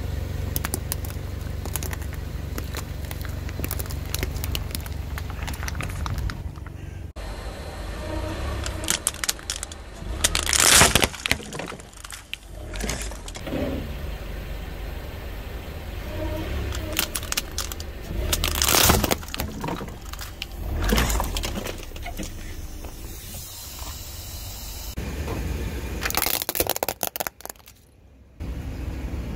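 A car tyre rolls over and crushes plastic objects in turn: jelly cups, a bundle of plastic syringes, and a toy car. A steady low rumble of the car comes first, then several separate loud crackling crunches of breaking plastic.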